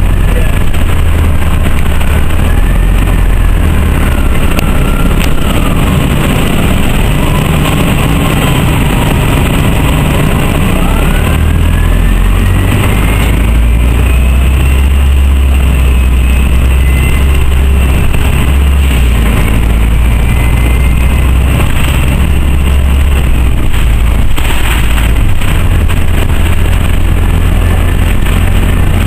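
Loud interior running noise of an Orion V CNG transit bus on the move: its Detroit Diesel Series 50G natural-gas engine and Allison B400R transmission give a deep, steady rumble. Over it a faint whine glides up and down in pitch as the drivetrain changes speed.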